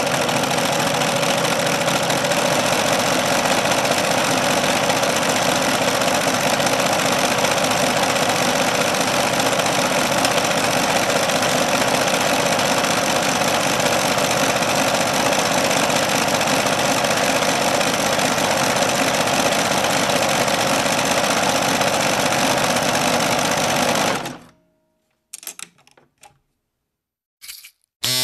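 A small electric household appliance motor running steadily and loudly with a busy mechanical rattle, switched off about 24 seconds in. A few faint clicks follow.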